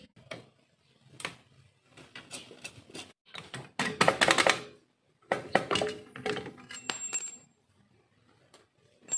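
Scattered metallic clicks, clinks and knocks as a scooter's CVT cover is worked loose with tools and pulled off by hand. The loudest clatter comes about four seconds in and again at five to seven seconds, with a brief high metallic ring near seven seconds.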